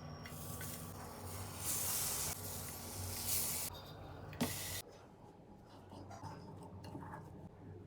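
A steady hissing noise that swells twice and cuts off abruptly about five seconds in, followed by a few faint clicks.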